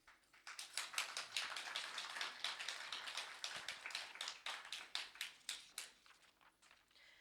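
Audience applauding at the end of a song, the clapping starting about half a second in and thinning out near the end.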